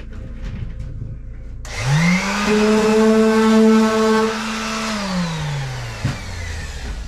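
Electric power sander switched on briefly: its motor spins up within about half a second, runs steadily for about three seconds, then winds down over about a second once released. A short knock follows.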